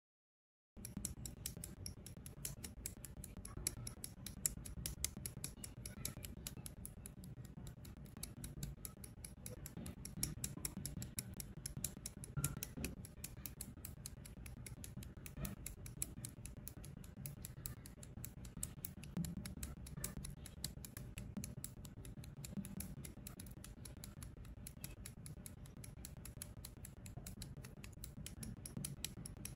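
Side cutters (nippers) snipping and clicking on small plastic model-kit parts, a rapid, even run of small clicks that starts about a second in.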